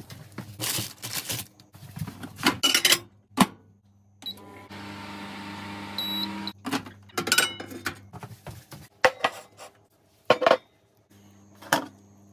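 Kitchen microwave oven in use: plate and door handling clatter and clicks, then a beep, a steady hum for about two seconds, and another beep as it stops. More clatter of the door and plate follows.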